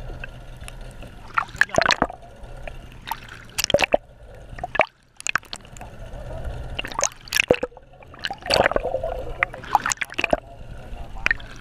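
Water sloshing and gurgling with a low rumble, broken by irregular sharp clicks and knocks. The sound drops out briefly about five seconds in.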